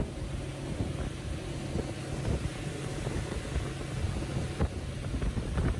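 Wind rushing over the microphone on an open boat, over a low steady hum from the boat's motor.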